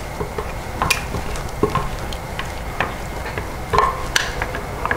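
Silicone spatula scraping chunky salsa out of a plastic food processor bowl: scattered wet scrapes with a few sharp plastic clicks.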